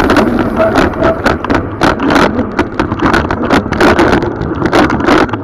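Mountain bike rattling down a rough dirt trail: a run of sharp, irregular knocks and clatter from the bike over ruts and roots, over the rumble of tyres on dirt and wind on the microphone.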